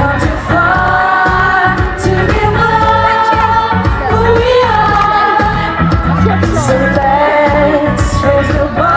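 Live pop music: long held sung notes over a steady, pulsing bass.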